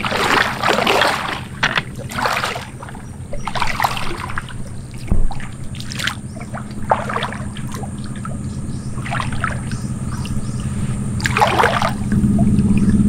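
Small boat engine running steadily at low speed, with water splashing and trickling in short bursts over it; the engine gets louder near the end.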